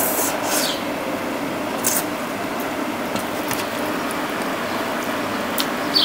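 Wet slurping of rice noodles at the start and again about two seconds in, then quieter chewing with small mouth clicks, over the steady hum of an electric fan.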